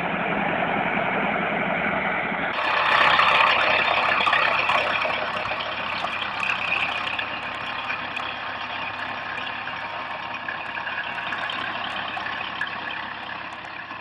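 Tractor engines running hard under heavy load: first one pulling log-laden trailers up a slope, then, after an abrupt change about two and a half seconds in, another so overloaded with firewood that its front wheels lift off the ground.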